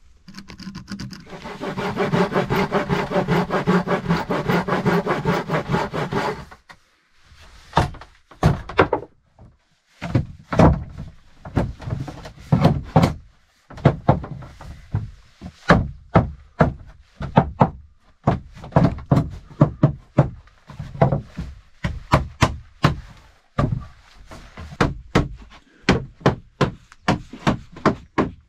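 Pine floorboards being knocked into place with a hammer: irregular hard wooden knocks, about one or two a second, from about seven seconds in. Before that comes about five seconds of steady rasping.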